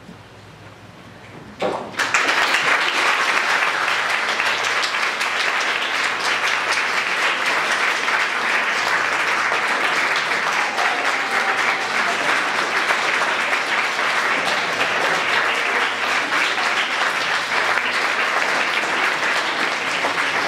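Audience applause that starts suddenly about two seconds in, after a quiet moment, and then goes on steadily as many hands clapping at once.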